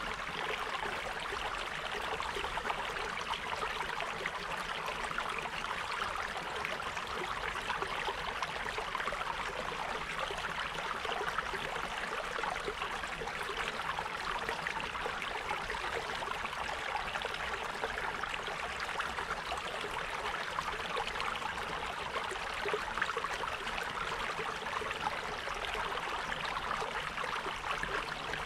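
Running water, a steady rushing noise with no breaks or changes.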